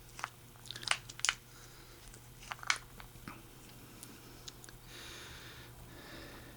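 Plastic .410 shotgun hull being hand-worked to start its crimp, giving scattered small crackling clicks, the sharpest about a second in and near the middle, over a faint steady hum.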